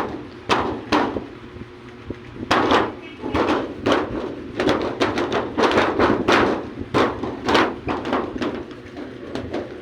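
A small child banging on a thin plywood wall: irregular knocks and thuds. There are two near the start, then a dense, uneven run from about two and a half seconds in.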